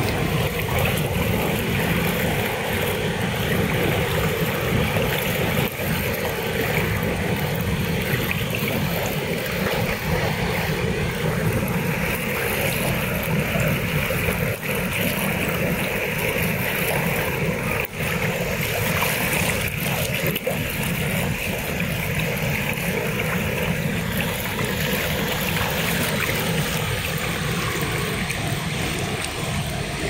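Large waterfall and the cascades below it rushing: a loud, steady roar of falling water, a little hissier in the middle stretch.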